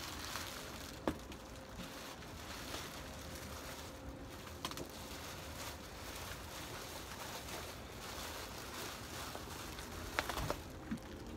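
Clear plastic sheeting rustling and crinkling softly as it is handled around a potted plant, with a sharp click about a second in and a few more near the end.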